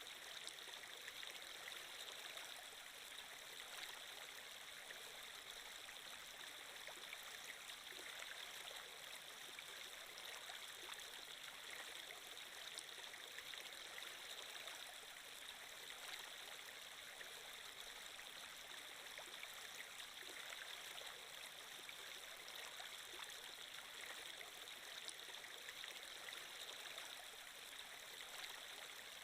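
Flowing-water sound effect, like a running stream: a quiet, steady rush of water with no breaks or changes.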